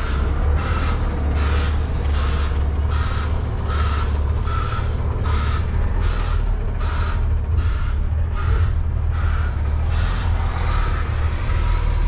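Truck reversing alarm beeping steadily, about twice a second, over the low drone of a semi-truck's diesel engine as the rig backs up.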